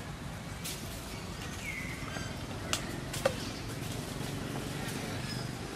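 Outdoor background ambience: a steady low hum, a brief high chirp about two seconds in, and two sharp clicks a little past the middle.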